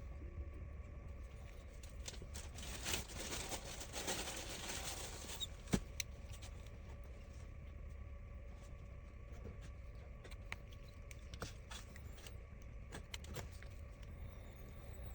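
Faint scattered clicks and a brief rustle over a steady low hum, with one sharper click about six seconds in.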